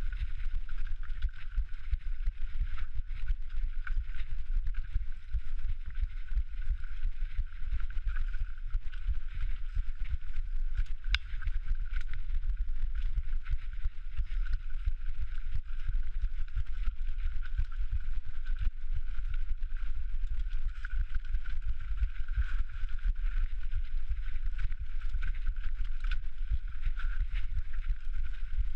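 Mountain bike descending a rocky technical trail: continuous rattling and clatter of the bike over stones, over a steady low rumble on the microphone.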